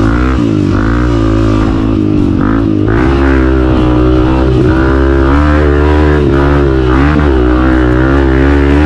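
Honda CRF 250F's single-cylinder four-stroke engine, fitted with an aftermarket exhaust, running hard under a rider, its revs falling and rising again several times as the throttle is closed and reopened.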